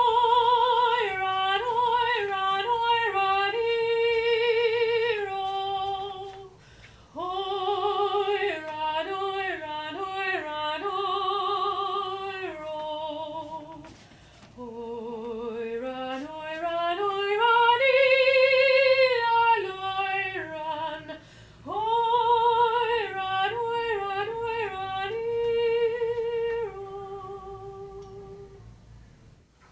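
A woman's solo voice singing unaccompanied in a slow, high melody with strong vibrato. The song comes in four long phrases with breaths between them, and the third climbs from low to a loud high note before the voice falls and fades near the end.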